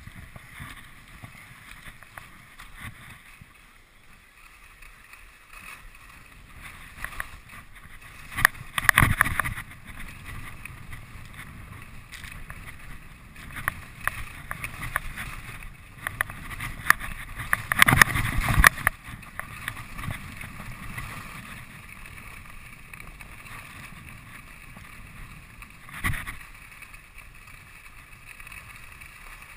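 Skis sliding over packed snow on a downhill run: a steady rushing hiss, with louder scraping bursts about 9 and 18 seconds in and a shorter one a few seconds before the end.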